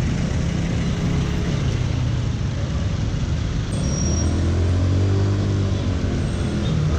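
Yamaha Mio Sporty automatic scooter's small single-cylinder engine running in slow city traffic, with road noise around it. Its pitch rises from about three and a half seconds in as it speeds up.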